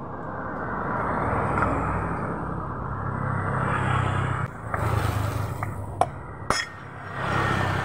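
Metal scraping and rubbing as a worn pulley bearing is worked out of a Honda Vario 125's CVT pulley, swelling and fading, with two sharp metallic clicks about six seconds in.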